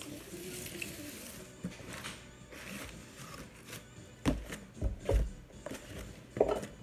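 Quiet background music, then four loud, dull thumps in the last few seconds.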